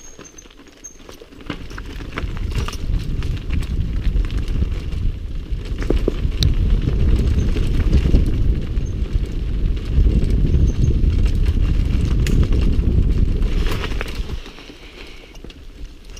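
Mountain bike rattling and knocking over a rocky trail at speed, with heavy wind buffeting on the microphone. It builds about a second and a half in and drops away sharply around fourteen seconds in.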